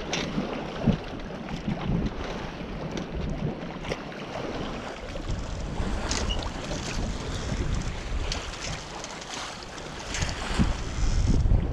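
Sea water sloshing and splashing along the hull of a Contessa 26 sailboat moving slowly through a big swell in light wind, with wind buffeting the microphone. The buffeting grows heavier near the end.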